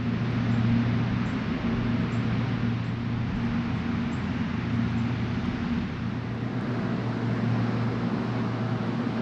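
Steady drone of the cooling fans at a bitcoin mining facility: an even rushing noise over a low hum and its overtone, continuous and unvarying.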